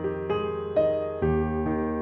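Background music: a soft piano or electric piano melody with bass notes, new notes struck about every half second.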